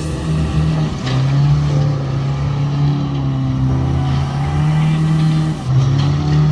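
A boat's motor running at a steady speed. Its pitch drops about a second in and comes back up near the end, as the throttle is eased and then opened again.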